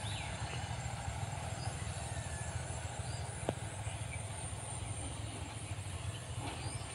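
Steady low engine rumble, with a single sharp click about three and a half seconds in.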